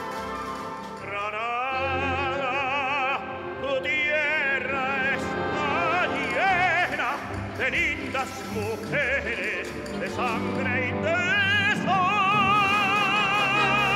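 Male opera singer singing with wide vibrato over a string orchestra. The voice enters about a second in and ends on a long held note near the end.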